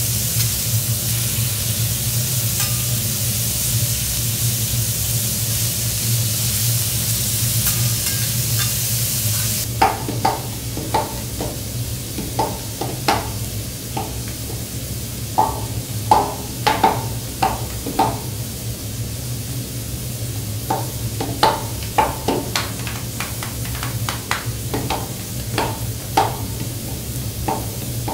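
Lobster meat sizzling on a hot teppanyaki griddle, a steady hiss that cuts off about ten seconds in. Then a run of sharp, irregular clicks and taps as salt and pepper shakers are twirled and knocked during seasoning, over a steady low hum.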